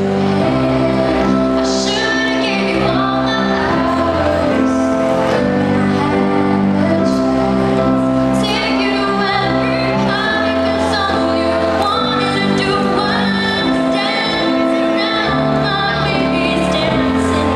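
A teenage girl singing an English song solo into a handheld microphone over instrumental accompaniment, her voice carried through the PA.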